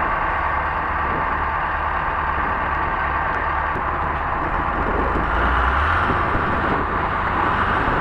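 Diesel engines of a heavy four-wheel-drive tractor and a Shacman dump truck running steadily under load as the tractor tows the truck through deep snow on a cable. The low engine note grows stronger about five seconds in.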